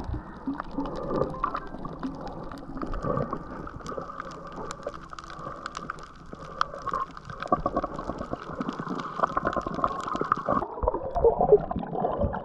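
Underwater sound heard through a GoPro's waterproof housing: muffled water movement with a constant scatter of small clicks and crackles. It grows louder and lower-pitched near the end, with bubbling around a swimmer's fins.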